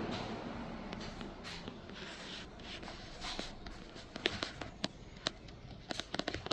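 Late-1970s Artic Aire box fan winding down after being switched off, its whoosh fading steadily. Several light clicks and taps come in the second half.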